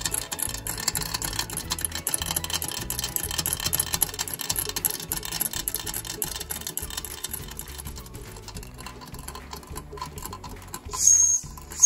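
Märklin 4137 live-steam toy engine running fast with a steady, rapid mechanical ticking rattle. About a second before the end, its boiler's steam whistle blows a high, steady note that breaks off briefly and sounds again.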